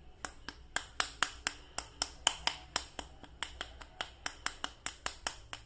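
A quick, slightly uneven run of sharp clicks, about five a second, from handling plastic action figure toys.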